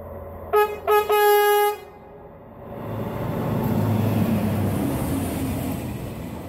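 Horn of a Plasser & Theurer track maintenance machine sounding two short toots and one longer blast about a second in, a horn greeting ("Makro") for the trainspotter. Then the machine's rumble as it passes close, swelling to its loudest about four seconds in and fading.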